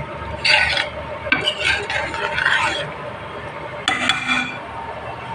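Metal ladle stirring thin curry in a stainless steel pan, scraping against the pan in two bursts, then a sharp metal knock with a short ring about four seconds in.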